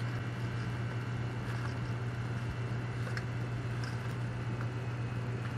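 Steady low hum, with faint rustling and a few light clicks as nylon harness webbing is threaded through the slots of a metal buckle.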